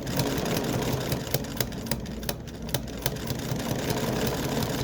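Kenmore 117.552 sewing machine running under its knee-lever throttle, sewing a line of stitches: a steady mechanical whir with sharp clicks. It starts abruptly.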